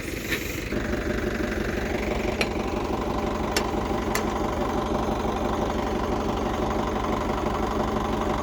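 Diesel engine of heavy machinery running steadily with a fast, even chugging, picking up slightly just under a second in, with a few sharp metallic clicks around the middle.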